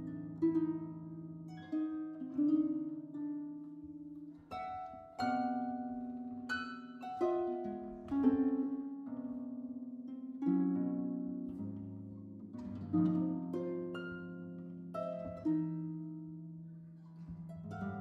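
Two concert harps playing a contemporary duet: plucked chords and single notes that ring and die away, with fresh sharp attacks about every second.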